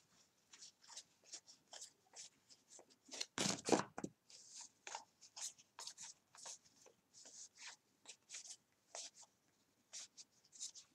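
Stack of 2018 Gypsy Queen baseball cards flipped through by hand, one card slid behind another: faint, irregular papery swishes and ticks of cardstock, a couple a second, with a louder flurry about three and a half seconds in.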